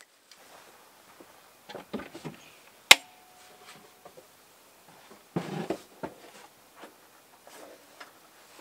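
Camp gear being handled: scattered knocks and rustles, a sharp metallic clink about three seconds in that rings on briefly, and a louder clatter a couple of seconds later.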